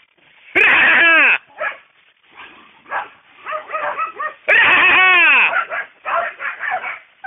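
Hunting dogs barking and baying. There are two long, loud bays that drop in pitch at their ends, about half a second and four and a half seconds in, with shorter barks and yelps between them.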